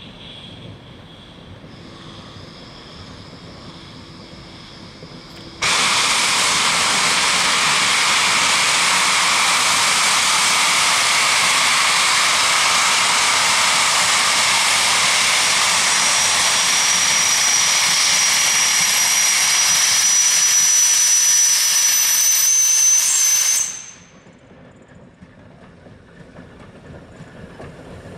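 A steam locomotive's safety valve lifting and blowing off steam: a loud hiss starts suddenly about five seconds in and holds steady for some eighteen seconds, a thin high whistling tone joins it partway through, and then it cuts off abruptly as the valve reseats.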